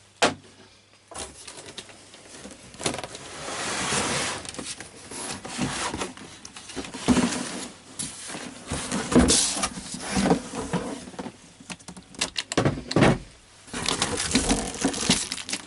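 Box contents being unpacked by hand: cardboard and plastic packaging rustling and crinkling in irregular bursts, with a few knocks as parts are set down.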